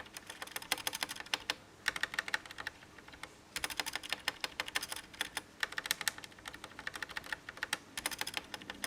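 Stabilized keys on a mechanical keyboard with plate-mounted stabilizers pressed repeatedly in rapid runs of clacks with short pauses between the runs, a sound test comparing unlubed stabilizers with stabilizers lubed with Krytox 205 Grade 0.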